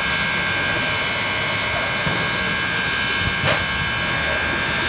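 Steam locomotive standing at idle, giving off a steady hiss of steam with a constant high whistling tone. A brief click comes about three and a half seconds in.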